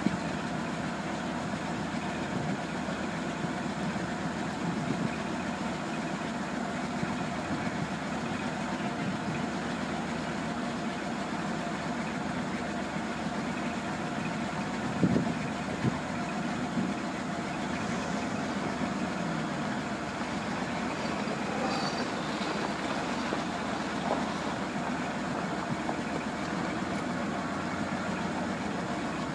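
The 1976 Ford F800 grain truck's Ford 391 gas V8 idling steadily, with a couple of short knocks about halfway through.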